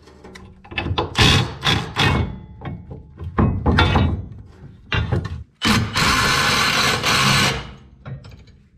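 Metal knocks and clanks as hitch rail bolts are handled and started. Then, for about two seconds, a cordless power tool runs steadily, driving a bolt into the truck frame rail.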